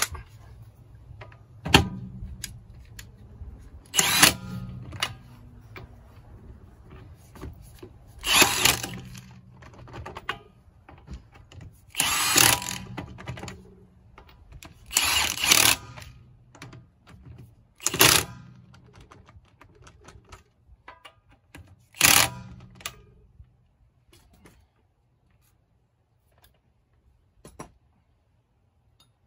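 Red cordless impact wrench run on a wheel's lug nuts in about seven short bursts a few seconds apart, one nut after another.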